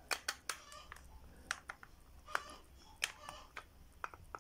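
Irregular light plastic clicks and taps, about ten in all, from an action figure being handled and adjusted in the clip of a clear plastic action-base stand.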